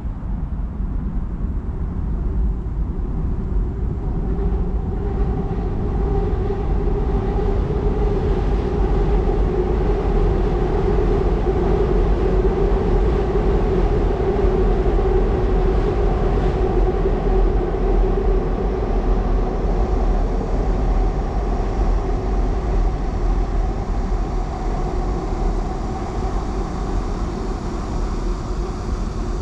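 A Seoul Metro Line 2 train crossing Jamsil Railway Bridge: a long rumble with a steady droning hum that builds over the first few seconds, is loudest in the middle and eases slightly toward the end.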